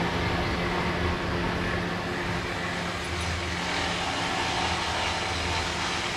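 Steady running noise of an idling car: a constant low hum under an even rush, unchanging throughout.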